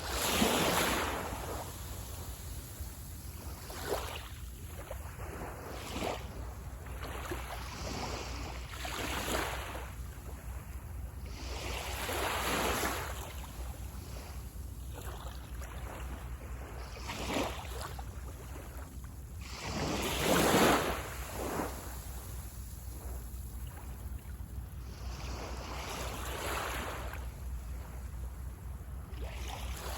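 Small waves breaking and washing on a beach, each wave a rising and falling hiss, the strongest surges just after the start and about two-thirds of the way through, over a steady low rumble.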